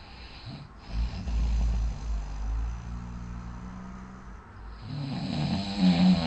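A person snoring loudly in deep sleep. One long low snore starts about half a second in, and a second, louder snore with a rapid flutter follows near the end.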